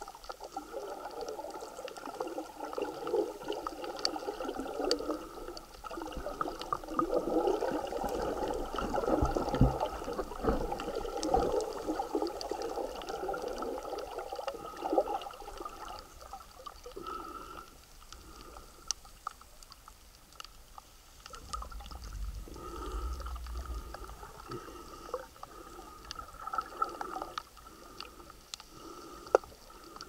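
Water sloshing and gurgling around a camera held underwater in shallow sea, with scattered sharp clicks; the water movement is heavier in the first half.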